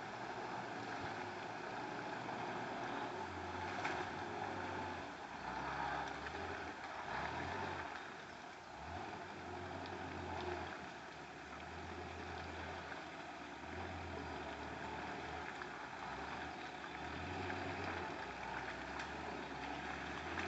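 UAZ off-road vehicle driving, its engine running with a low rumble that swells and eases, under a steady rough noise, with a brief lull about eight seconds in.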